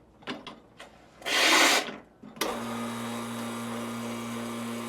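A few light clicks, then a short hiss, then an espresso machine's pump running with a steady hum as hot water flows through the group head, heating the puck screen.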